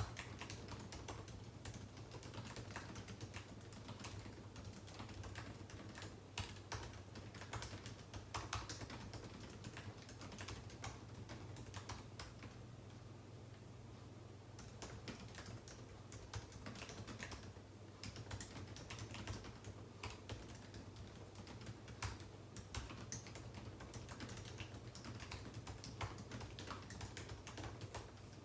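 Typing on a computer keyboard: quick, irregular runs of key clicks, with a short lull about halfway through, over a steady low hum.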